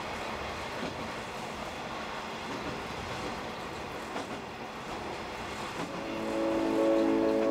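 Train running on the rails, heard from inside the cab: a steady running noise with a few faint knocks. Music with held chords fades in about six seconds in and grows louder.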